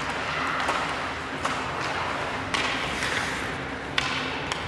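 Scattered sharp knocks and thuds of ice hockey play, from sticks, puck and boards, over the steady hubbub of a rink.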